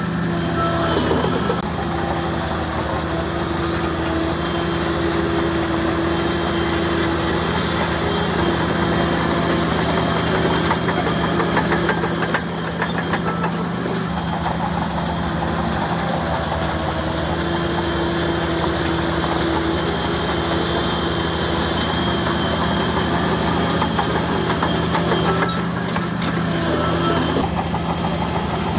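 Heavy diesel engine of a bulldozer running steadily, with a higher hum that swells in and out a few times.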